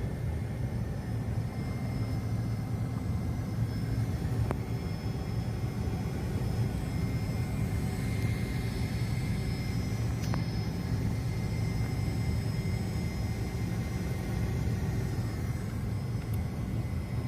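Steady rumble of a private jet heard from inside the cabin, with a faint steady high whine over it.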